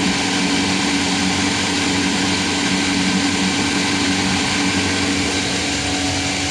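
Four Winns 268 Vista's V8 engine running steadily and smoothly, an even hum with no change in pitch.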